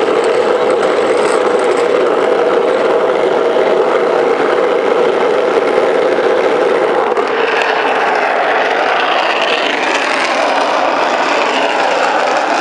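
Steel ball-bearing wheels of a wooden rolimã cart rolling fast over asphalt, a loud continuous rolling rumble heard close up from on board the cart, getting hissier about halfway through.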